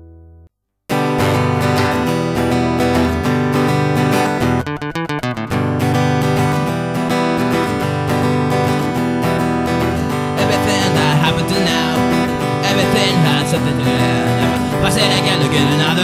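An acoustic guitar's last chord fades and cuts off. After a short silence, strummed acoustic guitar chords start the next song, with a brief choppy, broken-up stretch about five seconds in.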